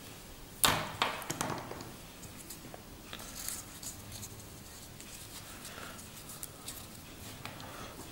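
Hands handling a canvas watch strap with a steel buckle: one sudden click a little under a second in, a few lighter clicks just after it, then faint rustling and ticks as the strap and its keepers are worked in the fingers.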